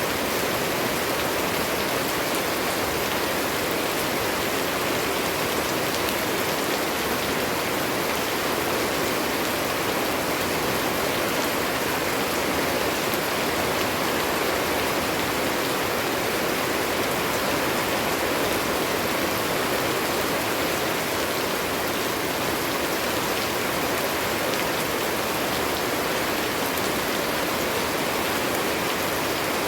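Steady, heavy rain falling, a dense even hiss of drops with no pauses.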